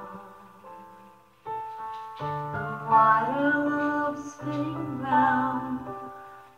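Piano song with vocals sung over the melody. The piano notes are sparse at first, and the singing joins and swells from about two seconds in.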